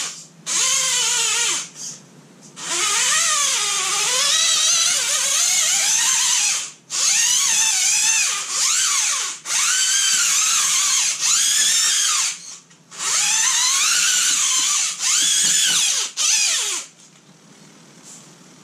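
Axial Capra 1.9 RC rock crawler's electric motor and geared drivetrain whining in spurts, the pitch rising and falling as the throttle changes, with short stops between runs. It cuts out about seventeen seconds in.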